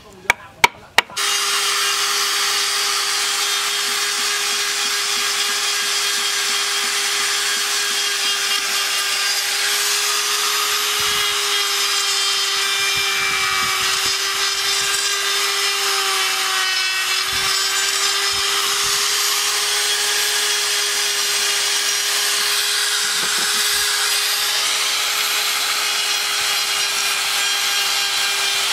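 A few sharp chisel taps on wood, then a handheld rotary tool starts about a second in and runs with a steady high whine as its small burr grinds into the wooden carving, the pitch sagging slightly now and then under load.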